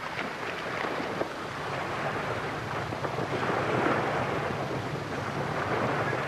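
Wind buffeting the microphone over sea surf, with splashing from a person running into the sea and swimming.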